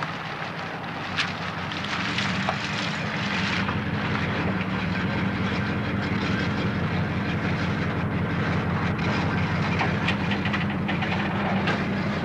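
Steady heavy vehicle rumble with rattling and scattered clicks, getting a little louder about two seconds in.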